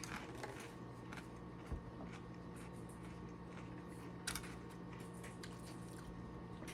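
Quiet room tone: a steady low hum with a few faint, scattered clicks and rustles.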